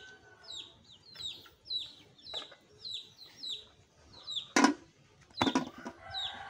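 Chickens peeping: a steady run of short, high, falling peeps about twice a second. Two knocks in the second half, as a lid goes onto the metal cooking pot.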